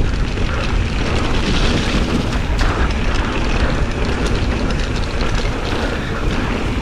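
Mountain bike riding fast down a dirt trail: heavy wind rumble on the action camera's microphone, with tyre noise and a steady scatter of small rattles and clicks from the bike on rough ground.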